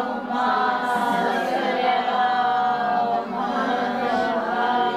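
A woman chanting an Arabic sermon opening in slow melodic recitation, drawing out long held notes with small ornamented turns and a short breath about three seconds in.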